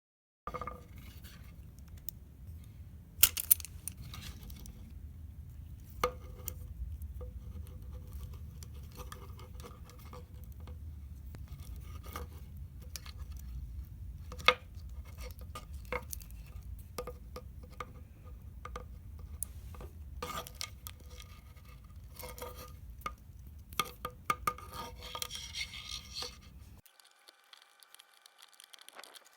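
Hand tools and small metal parts clinking and clicking irregularly as they are handled, with a few sharper knocks, over a steady low rumble. It all cuts off abruptly near the end.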